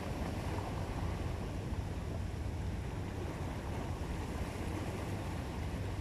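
Small sea waves washing and lapping against shoreline rocks, over a steady low rumble.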